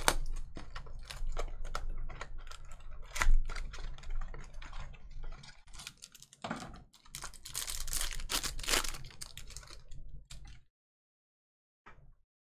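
A close run of small clicks and light rustling from handling, with a denser stretch of rustling about eight seconds in. It cuts off into dead silence a couple of seconds before the end.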